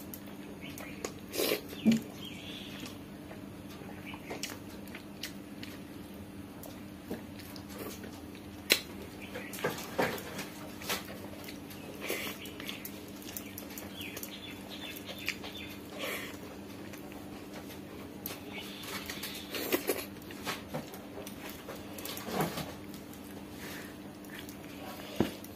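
Close-up eating sounds: fingers squishing and mixing soft rice and dal on a banana leaf, with chewing and lip smacks heard as scattered short wet smacks and clicks. A steady low hum runs underneath.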